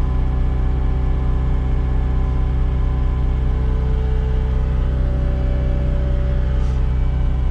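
Cat 259D compact track loader's diesel engine idling steadily.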